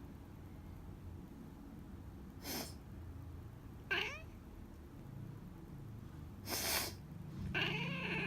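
A person sniffles twice, and each sniffle is answered by a short, complaining meow from a domestic cat. The second meow is longer.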